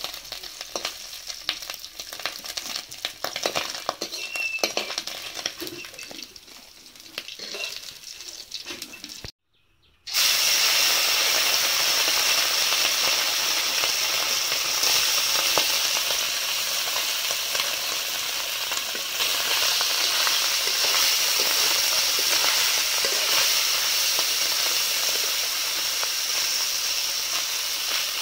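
Small river fish frying in hot oil in a wok: for the first several seconds a metal spatula clinks and scrapes against the pan over a light sizzle, then, after a brief break about nine seconds in, a loud steady sizzle of frying.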